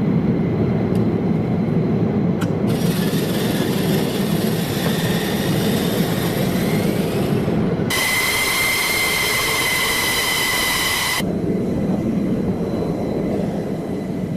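Jet aircraft engine running on the ground: a steady low rumble, joined about eight seconds in by a high turbine whine that lasts about three seconds and cuts off abruptly, as between edited shots.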